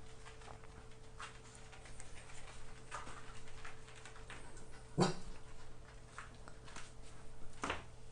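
A dog panting and breathing in short puffs every second or two; the loudest comes about five seconds in, another near the end.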